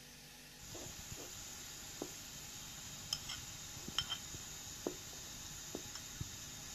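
A wooden spatula stirring a thick dolma filling in a coated cooking pot: soft scraping with irregular light taps and clicks against the pot, the sharpest about three and four seconds in.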